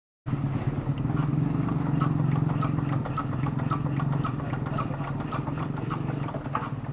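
Dongfeng single-cylinder diesel engine of a mini tractor running, with a rapid, even beat and light clattering ticks.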